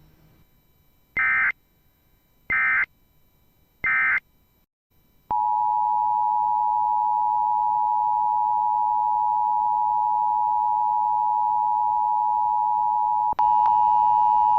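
Emergency Alert System tones: three short warbling data bursts of the end-of-message code, then, after a second of silence, the steady two-tone EAS attention signal, which gets louder about 13 seconds in.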